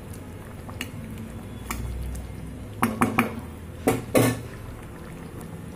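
Steel ladle stirring thick chayote masala curry in a pan, clinking against the pan about six times at uneven intervals, loudest around four seconds in.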